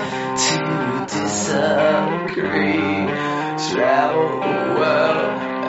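Music: a song with guitar and a wavering melody line.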